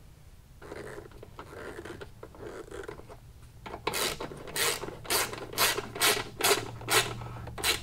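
Ratchet wrench tightening a screw. Soft handling and rubbing noises come first, then from about four seconds in a steady run of about eight short bursts of pawl clicking, roughly two a second, one with each back-swing of the handle.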